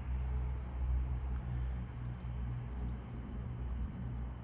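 Train passing over the junction at low speed, its engine a steady low rumble.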